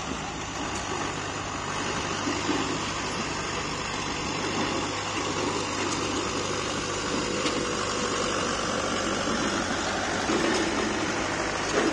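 Farm tractor engine running steadily.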